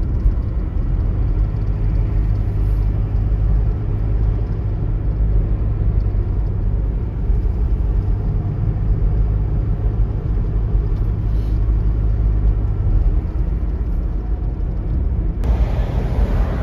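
Steady low rumble of a car driving along a road, engine and tyre noise. Near the end a louder rush of wind noise sets in suddenly.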